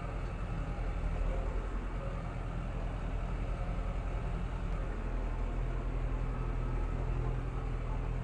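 Tractor diesel engine running steadily under load, heard from inside the cab, in third gear of the second range with its PTO driving a rotary hay tedder at the 540 eco setting.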